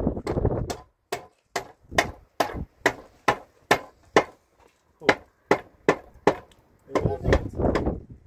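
A hand tool striking repeatedly, about a dozen sharp blows at roughly two a second, with a short pause midway. A dense, scuffing noise returns near the end.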